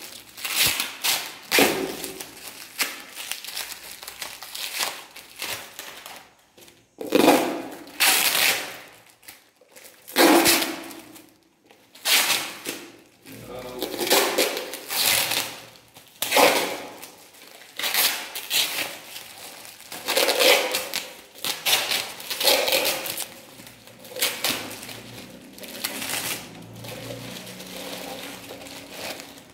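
Paper and plastic wrapping crinkling and rustling in irregular bursts as a wrapped bundle is unwrapped by hand.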